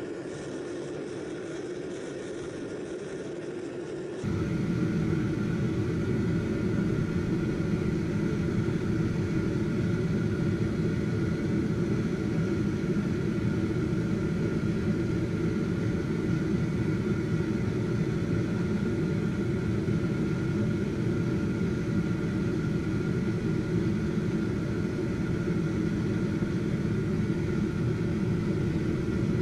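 Air blower forcing air into a charcoal-fired melting furnace: a steady rushing roar with a faint motor whine. It steps up in loudness about four seconds in.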